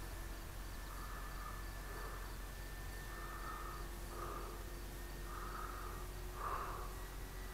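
Faint steady hum of a distant electric RC warbird, a 1700mm FMS P-47, its motor and propeller note wavering slightly in pitch. Short chirping animal calls come on top about once a second, the loudest near the end.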